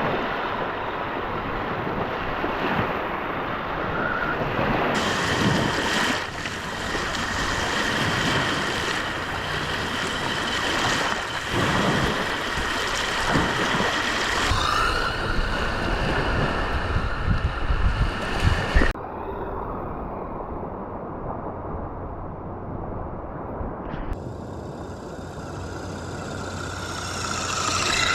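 Lake waves washing and wind buffeting the microphone, with the steady whine of a 3D-printed RC truck's motor running over the shore. The sound changes abruptly several times.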